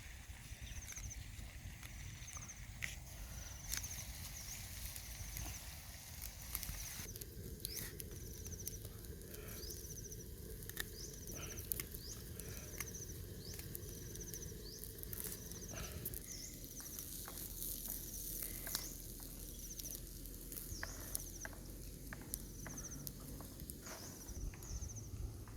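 A short high chirp repeating about once a second, over scattered clicks and taps and a low steady hum.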